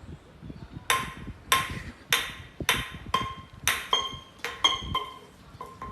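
A run of sharp clinking strikes, about two a second, each ringing briefly like glass or metal being tapped.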